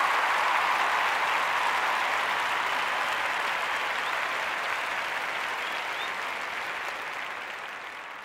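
Crowd applause, a dense even patter of many hands clapping, fading out steadily toward the end.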